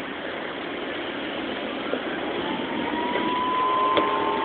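Fire truck engines running with a steady rushing noise; a steady whine comes in about two seconds in and the sound grows a little louder.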